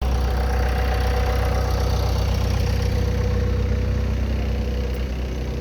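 Cat 289C compact track loader's diesel engine running steadily at idle, a deep low rumble with a steady hum over it, easing slightly near the end.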